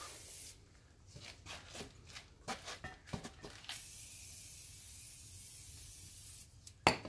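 Aerosol lubricant spray can hissing onto a tyre's beads to lubricate them before the tyre is levered onto the rim: short spray bursts and handling noises, then a steady spray for about three seconds from around four seconds in. A sharp knock near the end.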